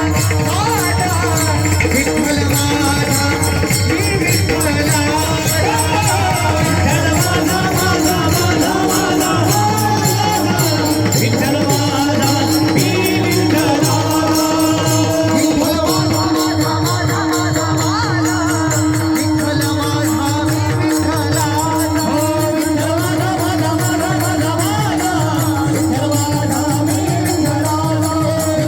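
Varkari kirtan bhajan: a male kirtankar sings in a high voice over a steady held drone, with jingling cymbals and drum keeping a fast beat.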